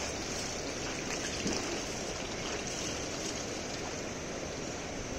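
Steady rush of flowing river water, an even hiss with no distinct splashes or voices.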